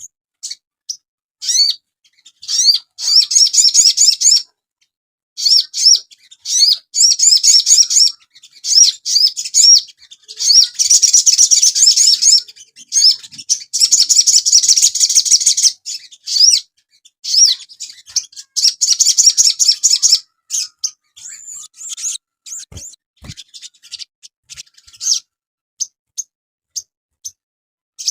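A sogon songbird singing in quick, high chirps and repeated rising trill notes, run together in dense phrases of a few seconds each. The song thins to scattered short chirps near the end.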